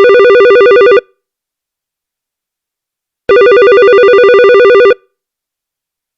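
Electronic telephone ringer warbling rapidly between two tones. One ring stops about a second in, and after a gap of about two seconds a second ring of about a second and a half sounds.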